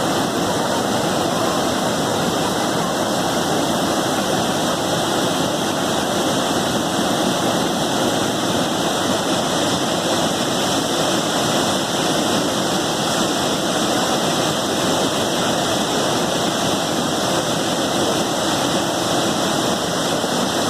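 Chitrakot Falls, a very wide waterfall on the Indravati River, giving a steady, unbroken rush of falling water.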